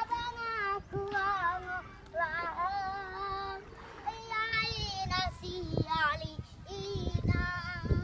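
Bajau children singing a song, with low beats underneath.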